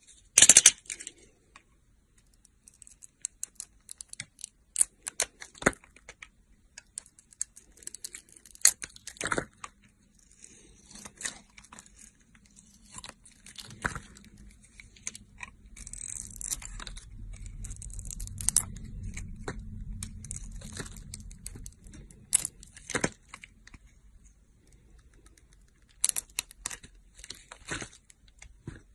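Knife carving bars of soap: a run of crisp scraping crackles and snaps as the blade cuts in and slices and chunks break away. A low rumble runs for several seconds in the middle.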